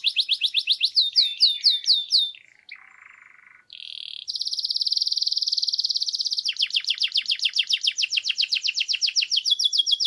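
Canary singing a long song of fast trilled rolls. After a few slower falling notes it briefly drops to a quieter buzzy phrase and a short held note, then runs into a long, rapid trill whose notes dip lower near the end.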